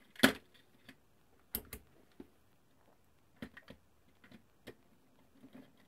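Scattered clicks and taps of multimeter test probes being handled and pressed against a power supply's screw terminals, with the sharpest click just after the start.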